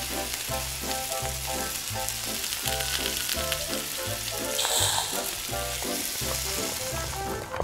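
Butter sizzling in a miniature metal wok while a wooden spatula stirs in flour, with a brief louder hiss about five seconds in as cream goes into the hot pan. Background music with a steady bass beat plays under it.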